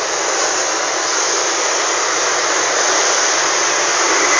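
Diesel engine held at high revs under a floored accelerator for a smoke-emission test, heard as a steady rushing exhaust noise that grows slightly louder.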